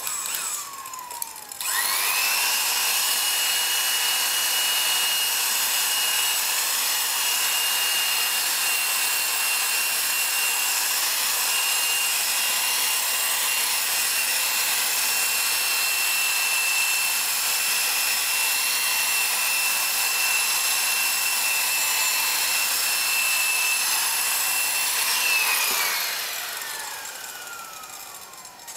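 Handheld power tool spinning a wool buffing pad against the lacquered finish of a wooden car trim panel. A short burst winds straight back down, then the tool runs up to a steady high whine with the hiss of the pad on the finish. It winds down with a falling whine near the end.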